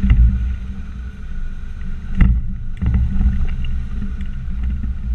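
Land Rover Discovery Td5's five-cylinder turbodiesel running steadily at low revs while driving off-road, with scattered small knocks and rattles and one loud thump a little over two seconds in.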